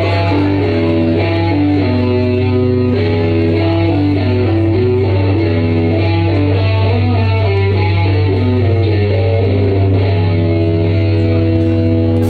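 Instrumental music led by guitar, with chords changing every second or so over a steady low drone.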